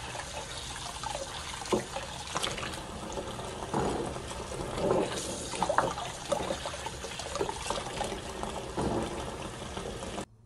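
Kitchen tap running into a plastic basin of peeled garlic cloves while hands rub and turn the cloves in the water, with irregular splashes and sloshing over the steady stream. It stops suddenly near the end.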